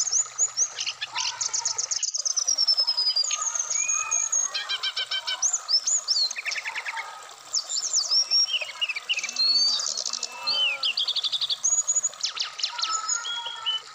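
Brown-chested jungle flycatcher (sikatan rimba dada coklat) singing a busy, varied string of short whistled phrases, chirps and rapid trills over the steady rush of a shallow stream.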